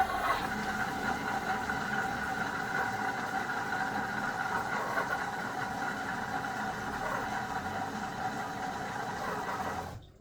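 Washing machine running with a steady, even hum that cuts in suddenly and cuts off suddenly near the end.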